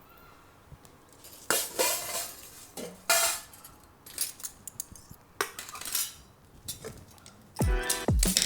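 Plates and cutlery clinking and scraping in a handful of separate knocks as a meal is served. Near the end, music with deep, falling bass notes comes in.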